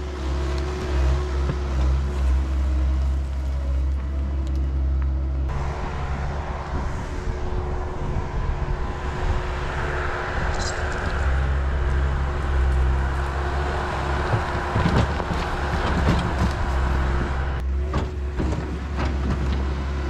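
Diesel engine of a mini excavator running steadily, with a rougher stretch from about five seconds in and a few knocks near the end.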